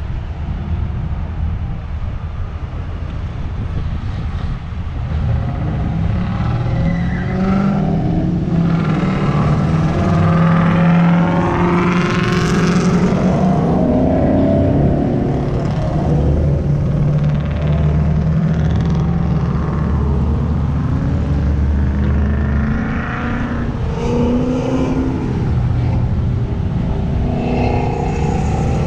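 Several cars accelerating past one after another, their engines revving up with rising pitch and the loudest pass about a third of the way in. A deep engine rumble holds through the middle, and another car revs up near the end.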